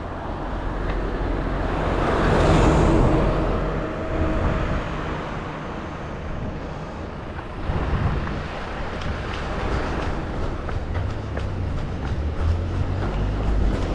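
A road vehicle passing close by: its noise swells to a peak about two to three seconds in and then fades, over a steady low rumble.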